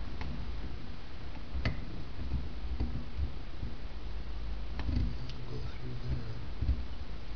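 A few sharp metal clicks from the Jaguar E-Type brake pedal box and servo assembly as its pedal linkage is handled and worked by hand, over a steady low hum.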